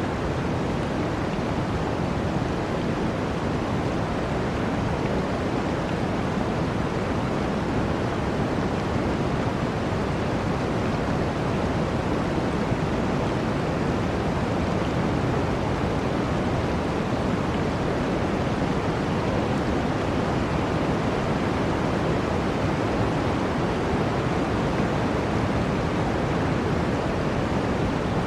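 Rushing water making a steady, even noise with no separate splashes or drips.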